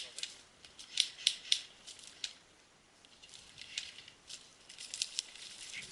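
Scattered sharp, high clicks and crackles, coming singly or a few at a time, with a quieter gap about halfway through.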